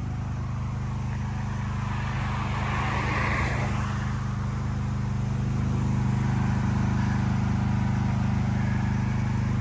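A pressure washer's engine running steadily, with a brief swell of hiss about three seconds in.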